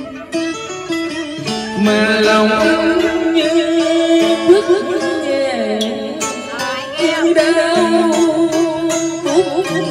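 Music: a plucked string instrument playing melody notes that bend and waver, over a steadier lower line, in the style of Vietnamese tân cổ music.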